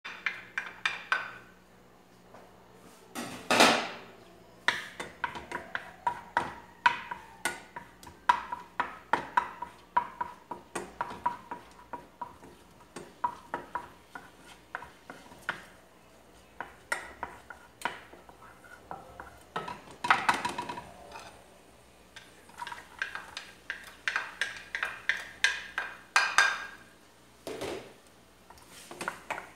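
Wooden spatula knocking and scraping against a frying pan as food is stirred: irregular taps several a second, with louder clatters a few seconds in and again about two-thirds of the way through.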